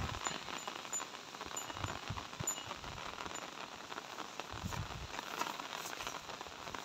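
Light rain pattering on leaves and grass: an even patter of many small drops, with a few low thumps around five seconds in.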